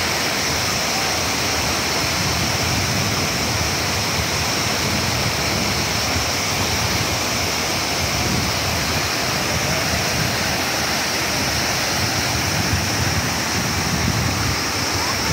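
Tall waterfall pouring into a rocky stream: a steady, unbroken rush of falling and tumbling water.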